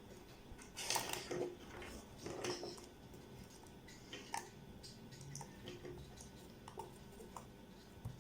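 Cables being plugged into a digital audio decoder board: scattered small clicks, taps and rubbing of connectors and leads, with louder rustles about a second in and again about two and a half seconds in.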